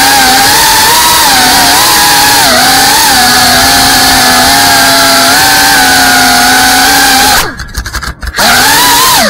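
FPV quadcopter's brushless motors and propellers whining at high throttle, the pitch wavering as the throttle changes. About seven and a half seconds in, the whine falls in pitch and almost cuts out for about a second as the throttle is chopped, then comes back.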